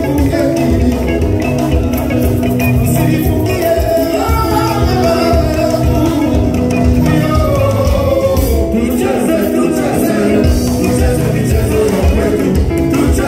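Live Congolese rumba band playing loud and without a break: electric guitars and bass over a steady beat, with a man singing into a microphone.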